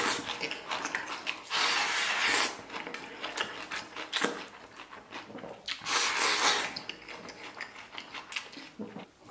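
A person slurping spicy food in long hissing pulls from a bowl held to the mouth, three times, about a second each, with wet chewing and smacking in between, close to the microphone.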